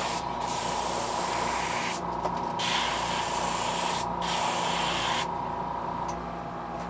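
Airbrush spraying a gold base coat onto a jerkbait lure in light coats. It hisses in three bursts of one to one and a half seconds each and stops a little after five seconds in, over a steady hum.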